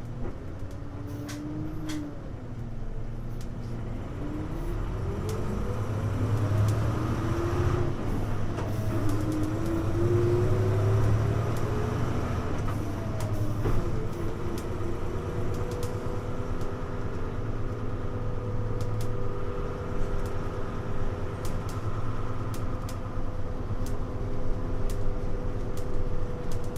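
Hino U-HU2MLAA city bus running, heard from inside the cabin: the engine and drivetrain tones climb in pitch and drop back several times as it gathers speed through the gears, then hold a steady whine over a low rumble while cruising.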